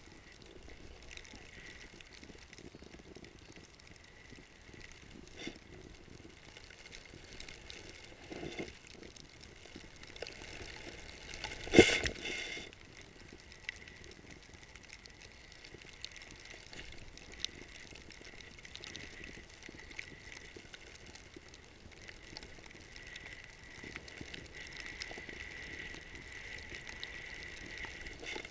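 Snowboard riding through deep powder snow: a steady rushing hiss with scattered small clicks and rattles, and one loud short burst about twelve seconds in.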